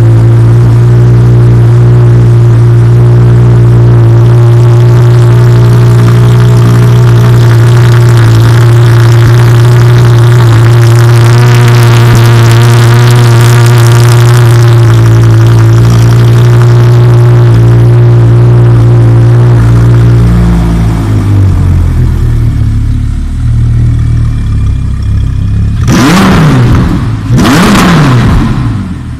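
Audi R8's V10 engine idling steadily and loudly for about twenty seconds, then settling lower and running unevenly, followed by two sharp throttle blips near the end, each rising and falling quickly.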